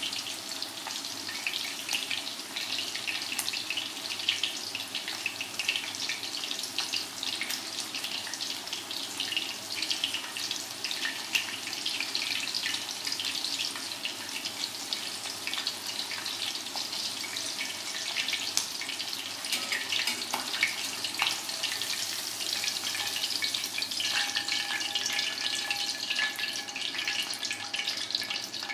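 Battered chicken pieces deep-frying in hot oil in a stainless steel pan: a steady sizzle of bubbling oil, thick with fine crackles.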